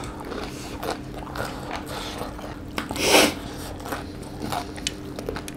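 Close-miked chewing and biting of crispy fried chicken, with small wet mouth clicks throughout and one louder bite about three seconds in.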